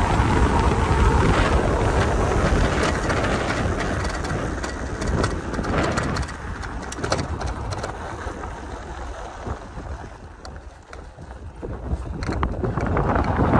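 Wind buffeting the microphone while an electric dirt bike rides a bumpy dirt road, its tyres rumbling on gravel with scattered clicks and rattles over the bumps. The rush fades about ten seconds in and builds again near the end.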